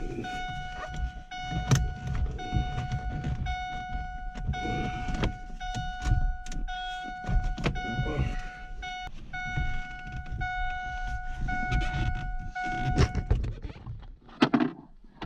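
Car's electronic warning chime, most likely the key-in-ignition reminder, beeping as a steady tone in pulses about a second long and stopping about 13 seconds in. Clunks and knocks from work on the steering column run underneath, with a sharper knock near the end.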